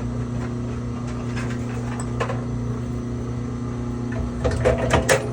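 Electric 1500-watt wire-stripping machine running with a steady motor hum. Scattered clicks, then a burst of rattling near the end as scrap wire is fed through it.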